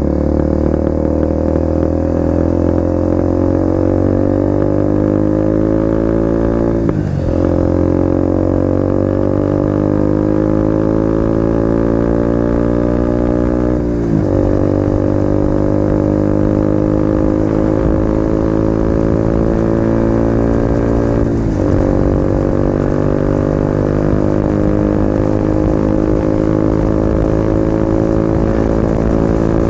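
KTM RC 250's single-cylinder engine pulling through the gears under the rider: the revs climb slowly in each gear, and the pitch drops sharply at three upshifts about seven seconds apart.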